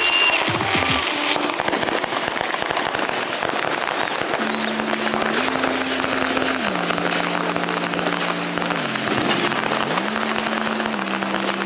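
Aerial fireworks display: shells bursting with dense crackling and popping. From about four seconds in, a soft line of held low notes steps up and down in pitch beneath it.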